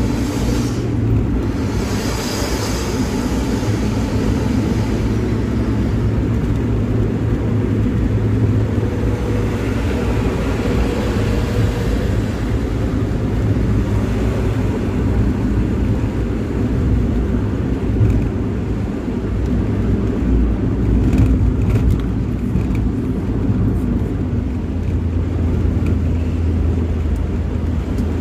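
Bus engine droning steadily with road and wind noise, heard from inside the cabin while cruising on a highway. A brief swell of hiss rises about two seconds in.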